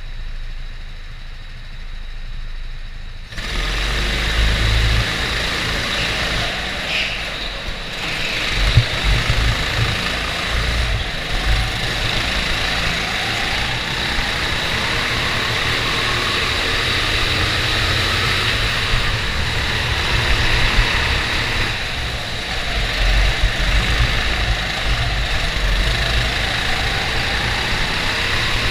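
Go-kart engines running slowly with the karts lined up, then opening to full throttle all at once about three seconds in for a practice start. The onboard kart's engine then runs hard, revs rising and falling through the corners, with other karts close by.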